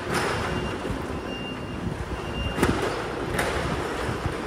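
Telehandler diesel engine running steadily, with a few sharp metallic knocks about a second apart near the middle.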